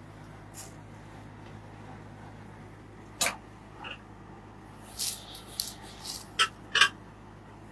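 Folded cotton and raw-silk (kesa pat) cloth being handled and unfolded on a glass counter: a few short, sharp rustles about three seconds in and again in the second half, over a steady low hum.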